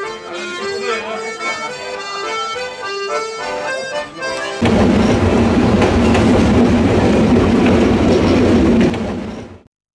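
Accordion playing a tune of short held notes. About four and a half seconds in, it gives way abruptly to a loud, steady rushing noise, which cuts off shortly before the end.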